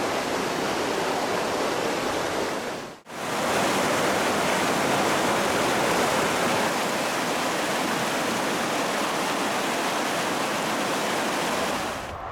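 Steady rush of river water, broken by a sudden brief dropout about three seconds in.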